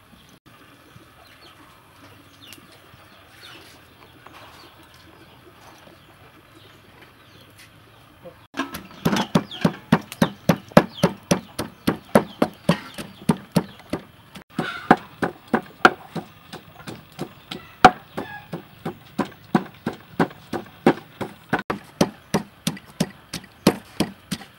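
Wooden pestle pounding garlic and chillies in a large wooden mortar: a steady run of dull thuds, about two to three a second, starting about eight seconds in.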